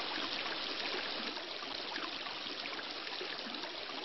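Steady rushing noise like a flowing stream, even throughout.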